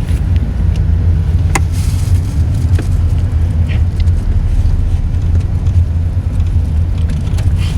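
Steady low rumble of a moving vehicle heard from inside its cabin, with a few faint clicks.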